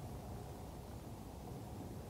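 Faint, steady ambient noise: an even low rumble with a thin hiss above it and no distinct events.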